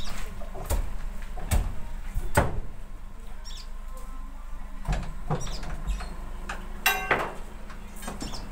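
Oil palm fruit bunches being loaded by hand from a pickup bed into a truck: irregular knocks and thuds as the bunches are handled and land, with a brief creak-like sound about seven seconds in.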